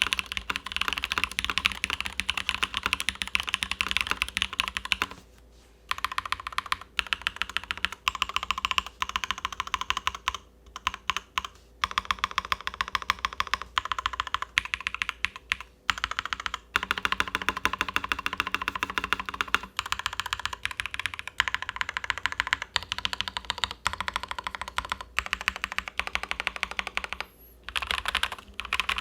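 Steady typing on a mechanical keyboard: a KBDFans Endless-80 aluminum board with lubed Durock POM switches on an aluminum top-mount plate, PBT keycaps and case foam. It makes a quick, dense run of key clacks, broken by a few short pauses.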